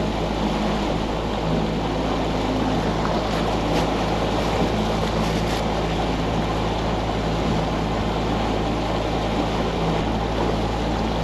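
A small fishing boat's engine running steadily under way, a constant low drone with wind and water rushing over it.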